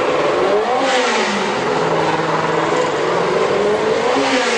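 Racing car engine running at high revs, blipped up and back down about a second in and again near the end.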